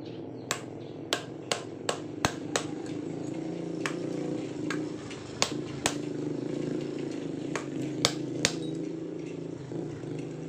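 Steel hammer striking a pipe drift to drive a bearing into a Sanyo water pump's metal housing: about a dozen sharp metallic blows at an uneven pace. A steady low hum runs underneath.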